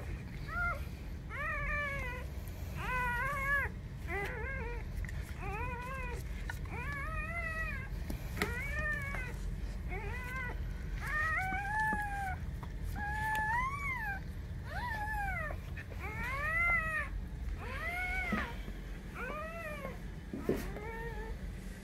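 Newborn Weimaraner puppy crying over and over, thin mewing squeals about one a second, each rising then falling in pitch.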